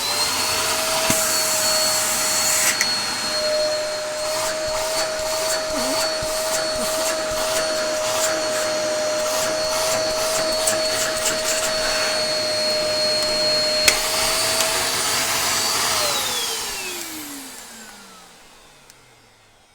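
Dyson DC03 upright vacuum cleaner, fitted with a brand new motor, switched on: the motor whine spins up, runs steadily with scattered clicks for about sixteen seconds, then is switched off and winds down in a falling pitch to silence. It is just a bit noisy.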